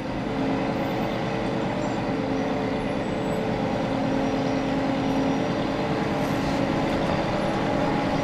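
Heavy machinery running steadily: a continuous engine drone with a low, even hum.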